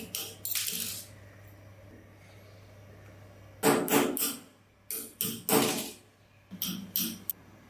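Short noisy strokes of work on the vehicle, coming in clusters of two to four with quiet pauses between, over a faint steady hum.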